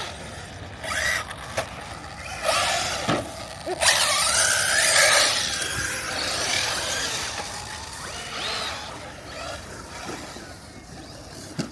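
Traxxas Mini Maxx RC monster truck being driven: its electric motor whines up and down in pitch as the throttle is worked, with a rushing noise under it. It is loudest for a few seconds near the middle, then eases off.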